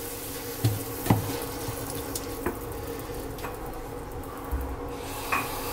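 Chopped tomato, onion and chilli sizzling in oil in a stainless frying pan, with a few scattered taps and scrapes of a plastic spatula against the pan over a faint steady hum.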